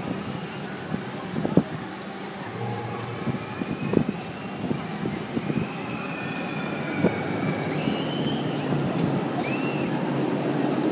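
Amusement-park background: a steady low mechanical rumble with a few sharp knocks and, later on, several brief high squeals.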